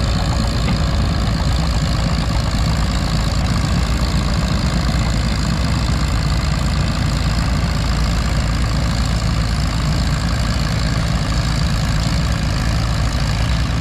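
Farmall M tractor's four-cylinder engine idling steadily, with no revving.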